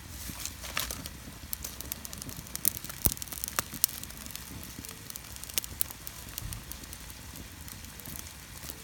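Wood fire crackling in a concrete-block rocket stove, with irregular sharp pops, the loudest bunched about three to four seconds in.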